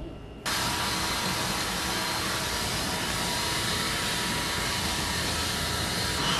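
A leaf blower runs steadily, its loud hiss cutting in suddenly about half a second in, with a faint steady whine on top.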